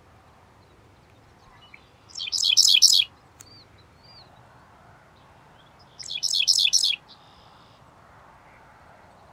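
Male dickcissel singing, two songs about four seconds apart, each a quick run of high, buzzy chirping notes lasting just under a second.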